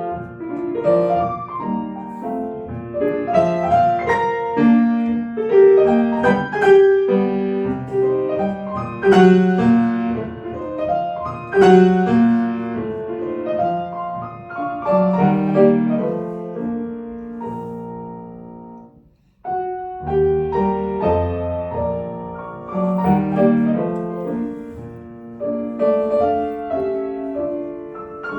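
Solo piano playing classical music. About two-thirds of the way through, a held chord fades out into a brief pause, then the playing starts again.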